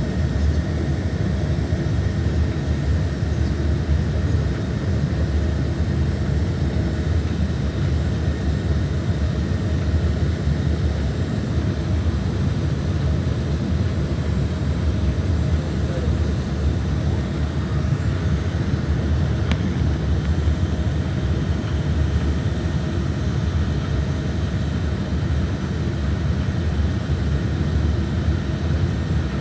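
Steady low engine drone and rumble with faint steady whining tones above it, unchanging throughout.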